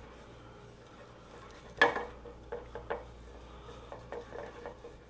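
A six-cup metal muffin pan being handled on a cutting board: one sharp clunk about two seconds in, then a few lighter taps and knocks.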